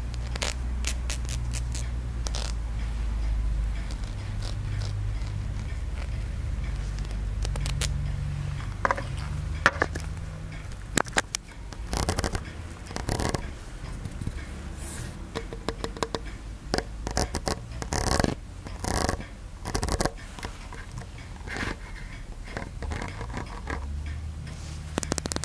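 Close-miked ASMR scratching and tapping on a Wenchang tower, a small pagoda ornament. A low rumble of handling comes first; from about ten seconds in it gives way to a string of sharp clicks and short scraping strokes.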